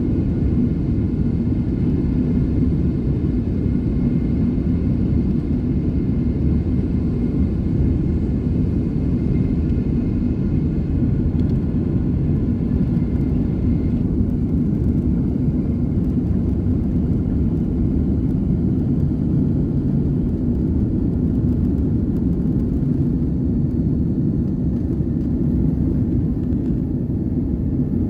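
Boeing 767-400ER's twin GE CF6 turbofans at takeoff thrust, heard from inside the cabin over the wing as a loud, steady roar and rumble. The plane is rolling down the runway and lifts off during the second half.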